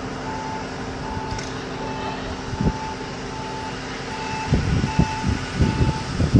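A vehicle's reversing beeper sounds a steady, evenly repeated beep about every three quarters of a second over a steady engine hum, with a few low thumps near the end.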